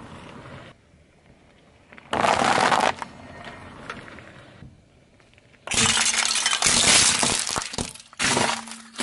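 Car tyre crushing brittle objects, which crack and break in three crunching bursts: a short one about two seconds in, a longer one starting near six seconds, and another near the end.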